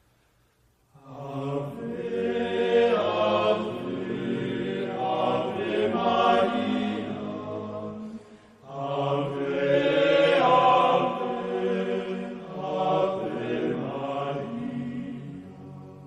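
Slow chanted singing, beginning about a second in and running as two long sung phrases with a brief break a little past halfway.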